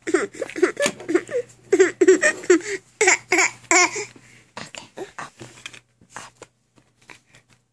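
Baby laughing in quick, repeated bursts for about four seconds, then only faint short sounds.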